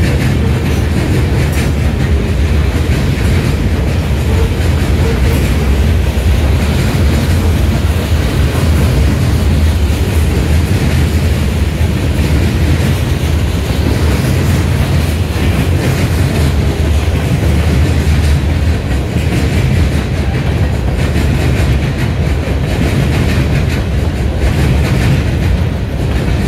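Freight train cars rolling past close by: a steady heavy rumble of steel wheels on the rails with clacking over the track.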